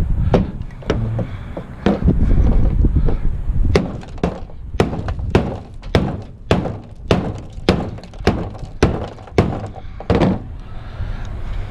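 Repeated hard thunks, about two a second for six seconds or so, as a piece of scrap is struck to knock a stuck part loose, after a few scattered knocks and handling noise.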